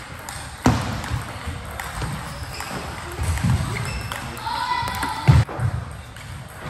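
Table tennis rally: the plastic ball clacks sharply off the rubber bats and bounces on the table a few times, with the loudest hit about five seconds in.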